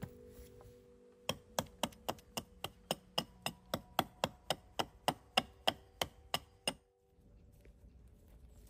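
A quick, even run of about twenty sharp chopping strikes, roughly four a second, starting a second or so in and stopping abruptly near the end.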